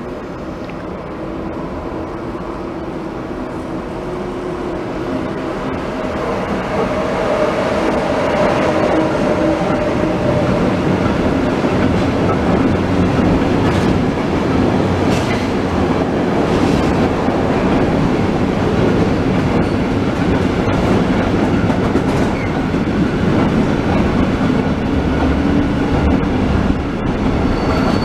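Electric freight locomotive approaching, then a long train of container flat wagons rolling past with a steady clatter of wheels over rail joints. The sound grows louder over the first several seconds, then holds steady.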